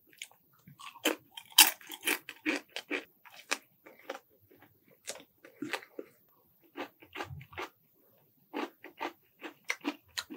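Close-miked chewing and crunching of fried chicken and shrimp in spicy sauce: many quick, irregular crunches with a pause of about a second past the middle.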